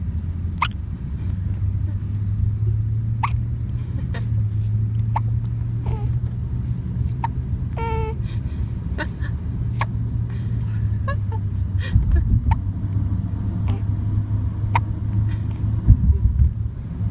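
A ten-day-old newborn hiccuping over and over, short sharp hics about once a second, one of them with a small squeak. A steady low rumble runs underneath.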